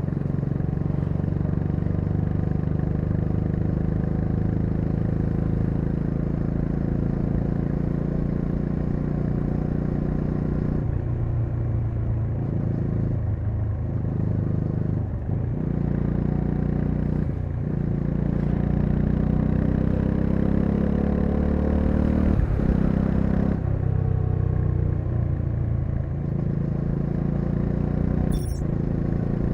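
Bajaj Dominar 400's single-cylinder engine running while the bike is ridden. The engine note dips briefly several times midway, then climbs steadily as it accelerates, with a short click near the end.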